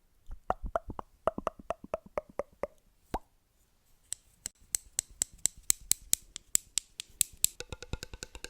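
Rapid light tapping on objects of different materials as ASMR triggers, in quick runs of about six taps a second. The first run has a hollow ring, the taps from about four seconds in are brighter and clickier, and near the end each tap carries a steady pitched ring.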